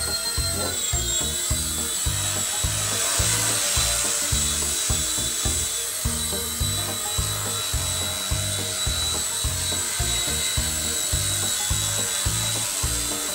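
Eachine E129 micro RC helicopter's electric motors and rotor holding a steady high whine in flight, just after spinning up for a one-key takeoff. Background music with a steady beat plays underneath.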